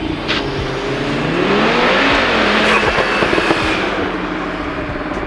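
Audi RS3 8V Sportback's turbocharged five-cylinder engine on its stock exhaust, revving up: the note rises for about a second, holds, then eases off. Short pops from the exhaust around the loudest part come from its stage 1 pops-and-bangs tune.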